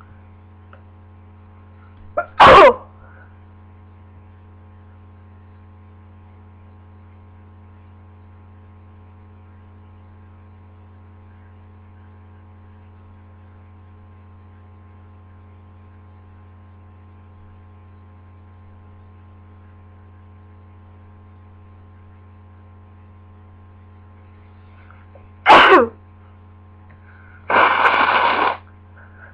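Two loud, sharp allergic sneezes, one about two and a half seconds in and one near the end, the allergy being to lilies. A breathy noise follows a couple of seconds after the second sneeze, over a steady electrical hum.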